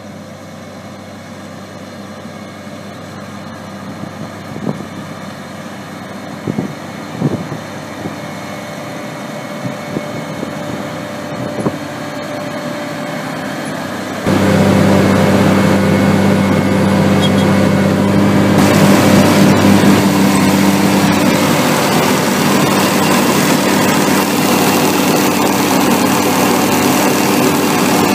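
Carrot harvester's engine and lifting machinery running steadily, with a few knocks, growing slowly louder. About halfway in it jumps much louder and closer, a dense mechanical clatter over the engine's steady drone.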